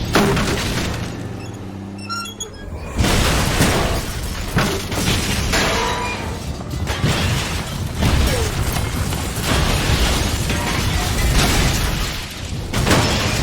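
Big rig truck smashing through buildings: a crash at the start that dies into a low rumble with shards of glass tinkling, then, about three seconds in, a sudden loud burst into a continuous din of smashing debris and booms, with another heavy hit near the end.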